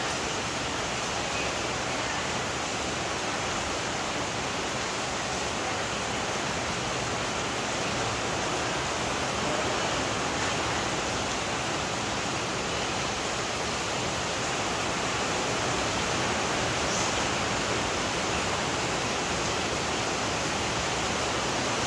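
Steady, even hiss of background noise that holds one level throughout.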